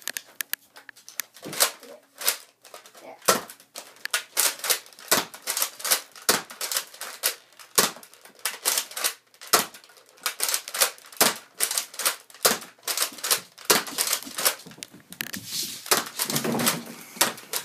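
Rapid, irregular plastic clicks and clacks, several a second, from a Nerf Retaliator toy blaster and its parts being handled. A rustling stretch comes near the end.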